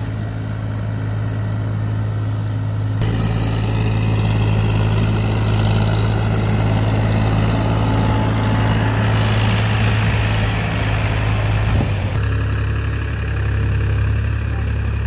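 Powertrac tractor's diesel engine running steadily under load as it pulls a rotavator through flooded, muddy ground, with water and mud churning. The sound changes abruptly about 3 seconds in and again about 12 seconds in.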